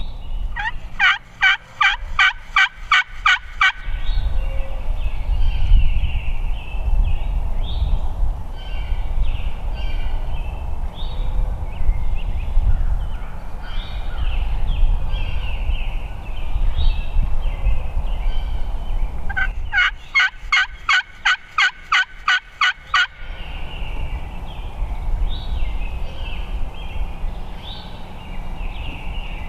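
Two series of turkey yelps, each a run of about a dozen evenly spaced raspy notes lasting about three seconds: one at the start and one about twenty seconds in. Small songbirds chirp between them.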